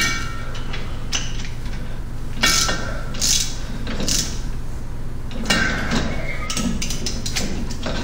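Metal clinks and clanks of tools and drivetrain parts being handled and fitted, several short knocks scattered over a steady low hum.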